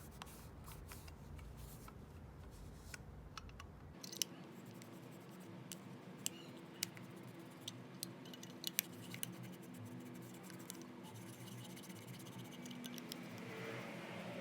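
Sparse light clicks and small scrapes from hand tools and small metal lighter parts being handled. The sharpest clicks fall around four to nine seconds in, and a faint steady hum comes in about four seconds in.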